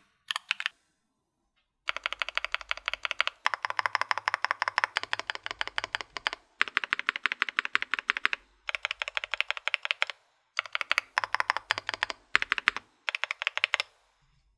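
Typing on a Swagkeys Shelby 80 gasket-mount mechanical keyboard with 02 switches (POM housings, P3 stem) and GMK keycaps: rapid keystroke clacks in runs of a second or two with short pauses between them, stopping near the end.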